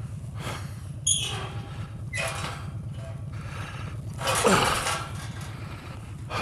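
Harley-Davidson Street Bob's V-twin engine idling steadily while a galvanised metal farm gate is pushed open. The gate gives a few rattles and creaks, with the loudest, a short squeal falling in pitch, about four and a half seconds in.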